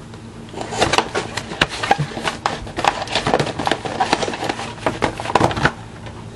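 Cellophane shrink-wrap crinkling and tearing as a sealed trading-card hobby box is unwrapped and its cardboard lid opened, a quick run of crackles and rustles.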